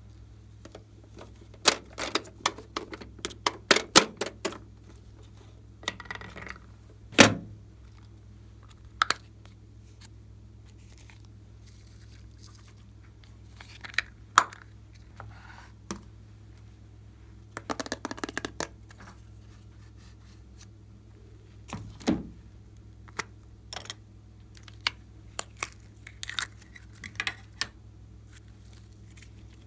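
Slime being handled and mixed: irregular clusters of sharp clicks, crackles and taps, with a steady low hum underneath.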